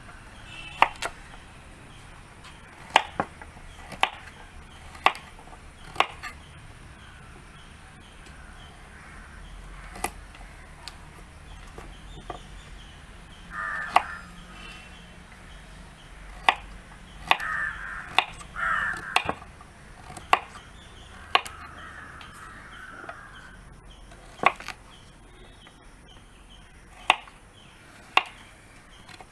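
Knife striking a cutting board in single sharp chops, roughly one every second or two, as vegetables are cut up. Crows caw a few times in the background.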